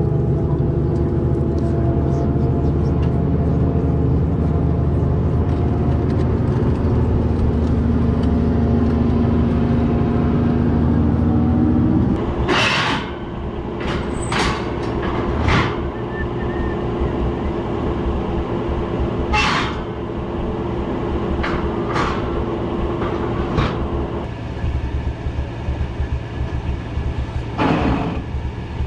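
A heavy vehicle engine runs steadily for about twelve seconds. Then it cuts to a quieter idling engine under a string of sharp metal clanks, about eight in all, as steel ramps on a flatbed trailer are handled.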